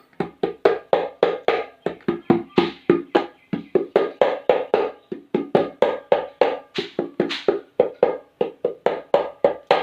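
Hand percussion playing a steady, even rhythm of sharp ringing strokes, about four to five a second, imitating the clatter of a running train. It stops abruptly near the end.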